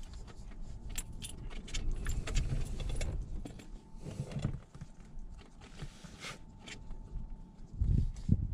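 A bunch of airplane keys jangling and clicking as they are handled, with a few dull bumps of handling in the cabin.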